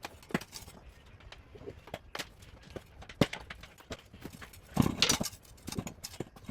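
Irregular knocks and clicks of tire pry bars working against a dirt bike wheel rim and tire bead, with a louder cluster of knocks about five seconds in.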